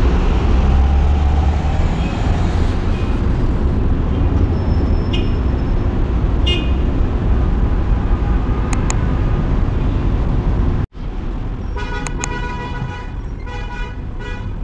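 Busy city street traffic: a steady rumble of car engines and tyres, with several short car horn toots, most of them in the last few seconds.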